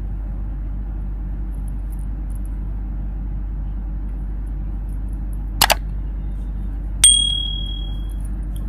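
Subscribe-button overlay sound effects: a quick double mouse click, then another click with a bell ding that rings out for about a second. A steady low hum runs underneath.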